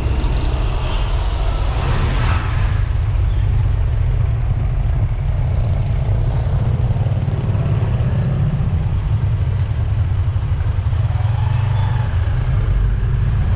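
A motorcycle riding in city traffic: a steady low engine and wind rumble on a camera mounted on the bike. A short high-pitched squeal comes near the end.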